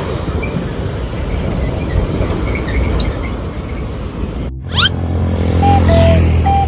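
Steady road-traffic noise, then an abrupt cut about four and a half seconds in, followed by a quick rising whistle and the steady low hum of a large vehicle engine. Short high-low tones sound twice near the end.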